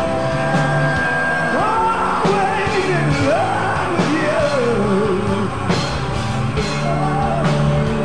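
Background rock music with a singing voice over a steady beat.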